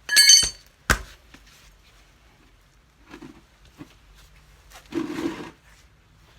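Hand work on a handcart wheel during a tyre change: a loud short clatter with a ringing tone at the start, a sharp knock just under a second in, then a rubbing scrape about five seconds in.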